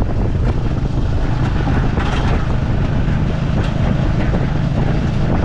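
Tuk-tuk under way on a rough dirt road: the towing motorbike's engine runs with a steady low hum while the passenger carriage rattles and knocks over the bumps.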